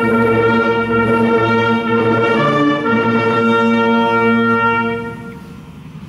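Brass instruments of a military band playing long held chords, several notes sounding together; the chord shifts about two and a half seconds in and dies away about five seconds in.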